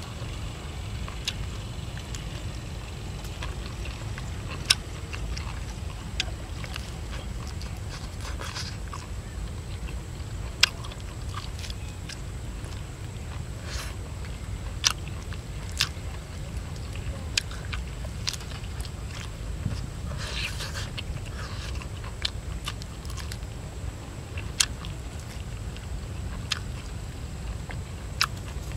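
A person eating roast chicken with his hands: chewing and wet mouth smacks, with irregular sharp clicks as meat is bitten and pulled from the bone, over a steady low rumble.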